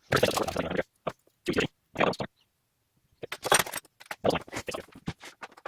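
Irregular bursts of handling noise: small objects rustled, scraped and clicked, with a dense run of short clicks in the second half.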